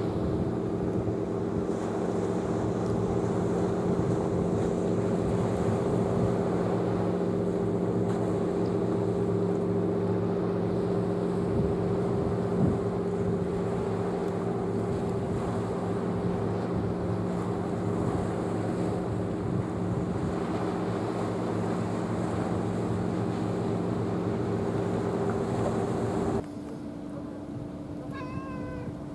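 Boat engine running steadily, a low drone of several steady tones. About 26 seconds in it gives way to a quieter single-tone hum, with a brief wavering high call near the end.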